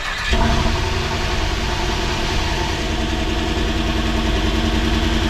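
Freshly rebuilt GM LS4 5.3-litre V8 catching on its first start, then idling steadily.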